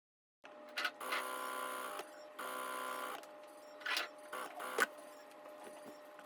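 Sewing machine stitching in two short runs of about a second each, with sharp clicks between them and after, as the fabric is handled.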